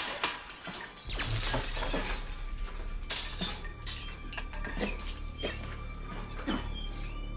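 Scattered clinks and rattles of glass and debris settling just after a blasting cap explosion, over a low steady hum, with a faint steady tone coming in about halfway.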